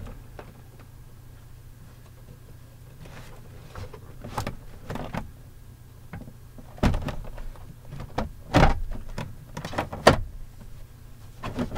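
Clicks and knocks of a pickup's plastic door trim and interior handle parts being handled and fitted. There are a few light clicks at first, then several sharp knocks in the second half, over a steady low hum.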